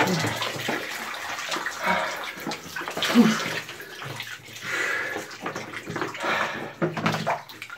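Shower water running and splashing onto a person washing, with a few short vocal sounds about two and three seconds in.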